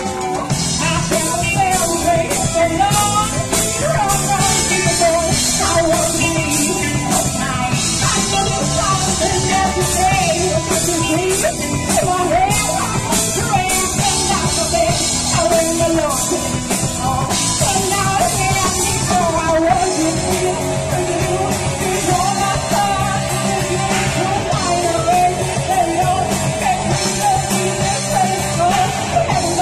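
Live rock band playing loud: a woman singing lead over two electric guitars, electric bass and a drum kit with cymbals.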